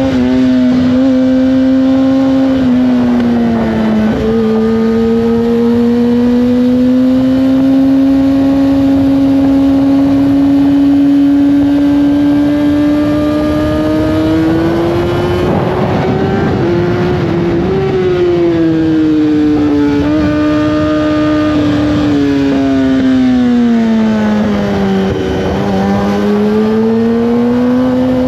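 Sport motorcycle's inline-four engine running steadily at speed, its pitch slowly rising and falling with the throttle: it sags about four seconds in and again near the end before climbing back. A rush of wind noise runs under it, swelling briefly about halfway through.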